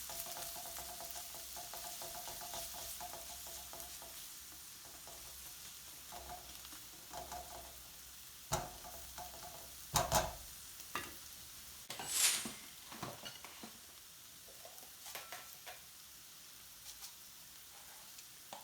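Ginger-garlic paste and onions sizzling in hot oil in a pan as they are stirred with a cooking spoon. The sizzle is strongest in the first few seconds; about halfway through the spoon knocks against the pan several times and gives one short scrape.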